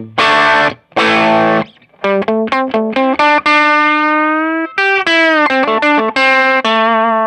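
Single-coil Fender Stratocaster played through a Fender Blues Junior III Tweed tube combo with its stock Jensen speaker. Two strummed chords come first, then a run of single notes with one held note, bent slightly upward, in the middle.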